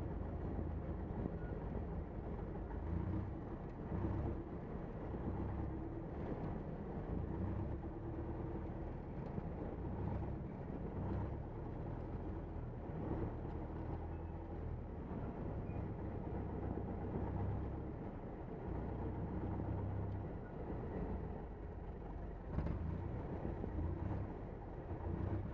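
A Van's RV-4's piston engine and propeller run at low taxi power, heard from inside the cockpit as a steady, gently pulsing low rumble.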